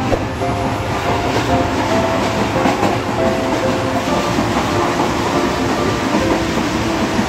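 Passenger train running at speed, heard from inside the carriage: a steady rumble of wheels on the rails.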